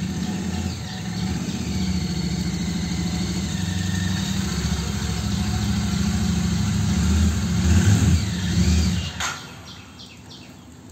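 Motorcycle engine running at low revs, blipped louder a few times around eight seconds in, then dropping away sharply just after nine seconds.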